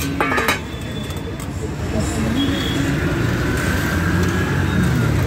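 Busy street-stall ambience: a steady low rumble of traffic with faint voices behind it, and a few quick metallic clinks about half a second in.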